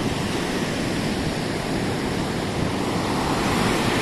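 Ocean surf washing onto the beach, a steady rush that swells slightly louder near the end.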